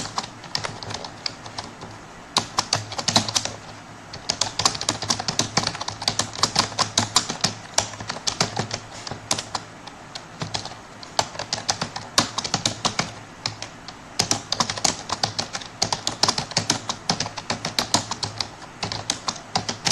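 Computer keyboard being typed on at a steady touch-typing pace, quick runs of key clicks broken by short pauses.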